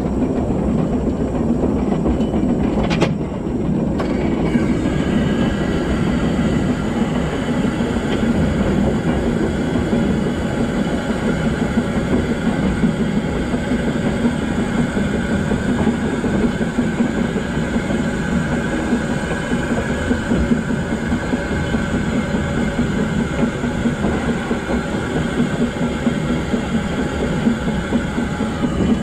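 Talyllyn Railway steam locomotive 'Tom Rolt' and its narrow-gauge train running along the line: a steady rumble of wheels on rail. There is a sharp click about three seconds in, and a faint high ringing joins soon after.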